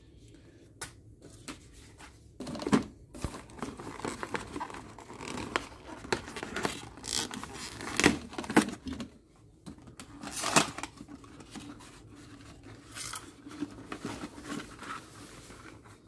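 Cardboard and plastic packaging rustling and crinkling as aquarium-kit parts are handled by hand, with scattered knocks and bumps against the glass tank.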